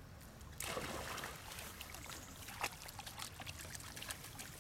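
Pond water splashing and trickling as a young macaque moves about in it, starting suddenly about half a second in, with many small splashes and one sharper splash a little after two and a half seconds.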